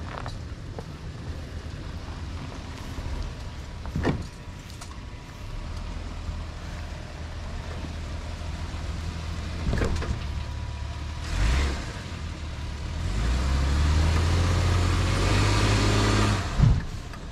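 2022 Toyota Tundra pickup's engine running at low speed while crawling off-road over logs and ruts, with a few sharp knocks along the way. Near the end the engine revs up and runs louder for a few seconds, then a sharp clunk.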